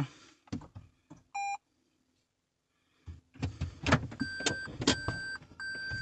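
A few soft clicks and a short electronic chime as a 2016 Toyota Prius is switched on to READY, then handling noise and, from about four seconds in, the Prius's in-cabin reverse warning beeping steadily, roughly one beep every 0.7 seconds, as reverse gear is selected.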